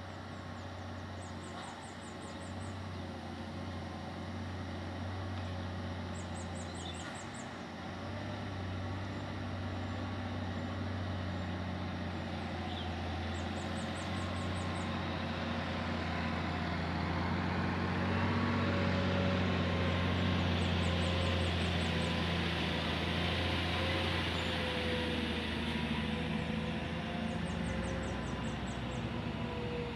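Engine of a heavy road vehicle running at low revs, growing steadily louder over the first twenty seconds as it approaches, then holding. A faint, high, rapid chirp repeats about every six or seven seconds.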